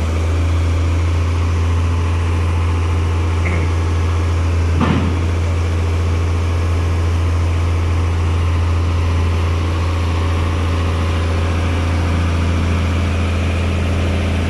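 Heavy diesel engine idling steadily with a deep, even hum. A single short knock about five seconds in.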